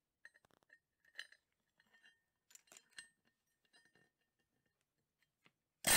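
Light metallic clinks and taps as a rebar square broach, a cut-down socket and an air hammer's bit are set against a steel plate. Near the end an Ingersoll Rand pneumatic air hammer starts hammering on the broach, suddenly much louder than anything before it.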